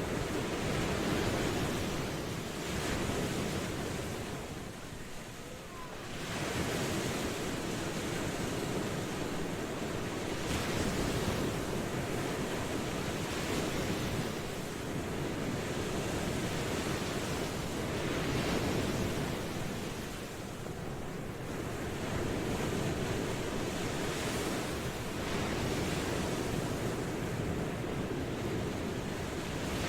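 Ocean waves breaking and washing on the shore: a continuous surf wash that swells and eases every few seconds, with a brief lull about five seconds in.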